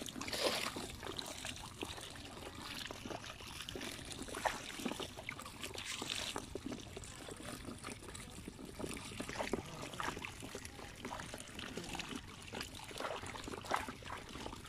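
Water pouring and trickling from a trap outlet into a woven bamboo basket, with irregular small splashes and patters as small fish drop in and flap against one another.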